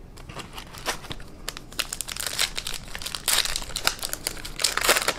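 Foil wrapper of a 2018 Topps Big League baseball card pack crinkling as it is handled and torn open: a dense run of sharp crackles that grows louder about two seconds in.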